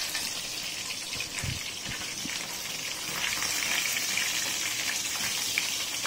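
Hot oil sizzling steadily as masala-coated chicken drumsticks fry in a pan, with two soft low knocks about a second and a half in.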